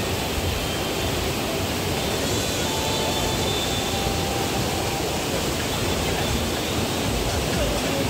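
Steady rushing of whitewater in an artificial rafting channel, with wind buffeting the microphone.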